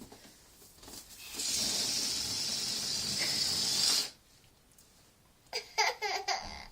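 A steady hiss of air rushing through a balloon's neck for about two and a half seconds, cutting off suddenly. Near the end a small child laughs and babbles in short bursts.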